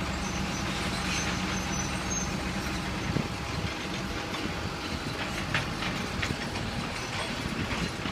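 Junttan pile-driving rig's diesel engine running steadily, with a few scattered metallic knocks from the rig, the strongest about three seconds in.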